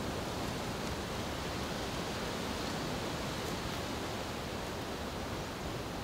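A steady, even rushing noise like wind, with no distinct sounds standing out.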